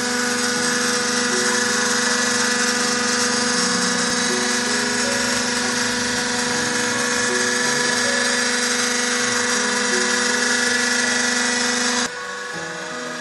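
Electric motor of an oil pump in a peanut-oil press shop running with a steady hum while it pushes oil through hoses into jugs. The level drops abruptly about twelve seconds in.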